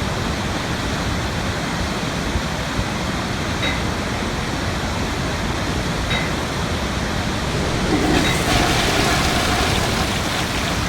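Steady rush of falling water from a garden waterfall, swelling a little louder about three-quarters of the way through, with a few faint short high chirps.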